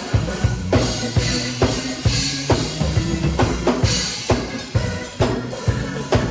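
Drum kit played live in a steady, busy groove, kick and snare strikes falling several times a second, over sustained low notes from an accompanying instrument.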